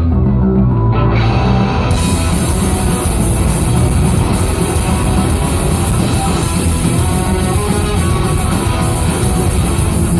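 Rock band playing live, loud and steady. A guitar passage is joined about two seconds in by the full band with drums and crashing cymbals.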